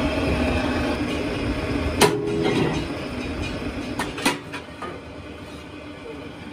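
Rim repair machine running with a steady drone, and metal wheel rims clanking as they are handled. There is one ringing clank about two seconds in and two more a little after the middle. The machine noise fades down in the second half.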